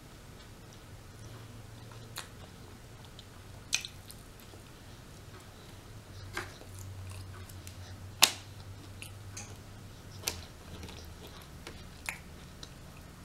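Close-miked chewing of rotisserie chicken, with six sharp, wet mouth clicks spaced a second or two apart; the loudest comes about eight seconds in.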